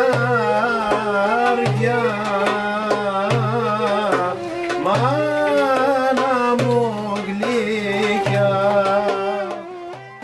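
Greek folk music: an ornamented, wavering melody over a steady held tone, with a low note struck about every one and a half seconds.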